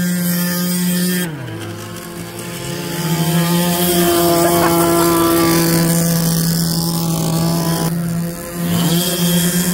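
Small two-stroke petrol engines of 1/5-scale RC trucks running at high, steady revs. The revs fall away about a second in, climb back a couple of seconds later, and dip briefly again near the end.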